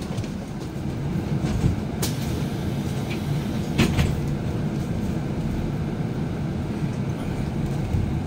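Cabin noise inside a moving city shuttle bus: a steady low rumble from the drive and tyres, with a couple of sharp knocks about two and four seconds in.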